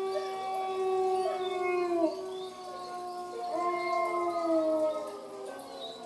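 Several drawn-out canine howls overlapping at different pitches, each held for a second or more and sliding slowly down in pitch, with a brief dip near the end before another begins.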